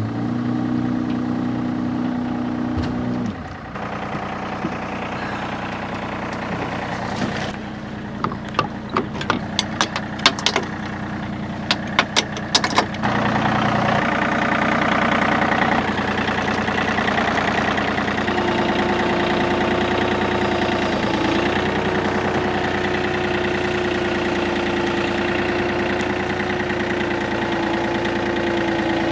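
An engine idling cuts off about three seconds in, followed by a run of clicks and knocks. Then a compact tractor's engine runs steadily at idle, with a steady whining tone joining in.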